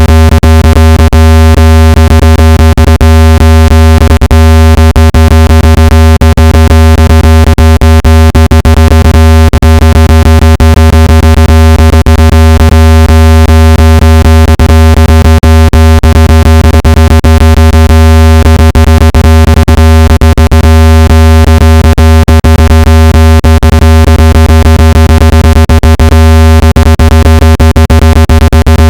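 Loud, steady, deep buzzy electronic tone: a water-eject sound played at full volume so the phone speaker's vibration pushes water out of it.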